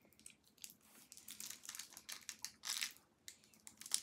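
A plastic candy wrapper crinkling as fingers work it open to get the sweet out, in short irregular crackles.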